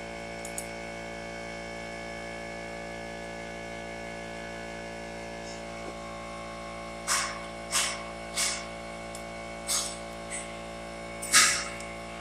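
Steady electrical hum with many overtones. About seven seconds in, a series of short, sharp hissy bursts joins it, coming roughly every half second to a second and growing louder near the end.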